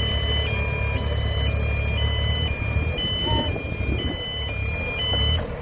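Excavator's two-tone travel alarm, alternating between two high notes about every half second over the steady rumble of the running engine, while the machine travels on its tracks; the alarm cuts off shortly before the end.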